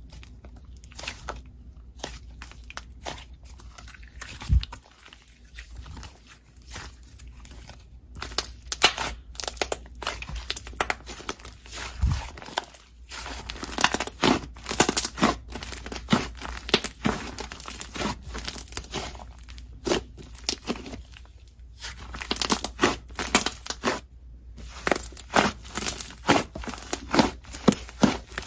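Slime with clay mixed in, being kneaded and squeezed by hand, giving off dense crackling and popping clicks. The crackles are sparser at first and come thick and fast in the second half, with a couple of short lulls.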